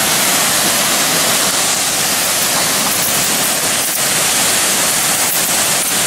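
Tiered waterfall cascades pouring into pools, a steady, even rush of falling water.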